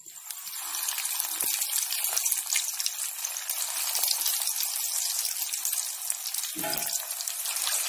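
Breaded fish pieces deep-frying in hot oil: a steady, loud sizzle that builds up over the first second as the pieces go into the oil.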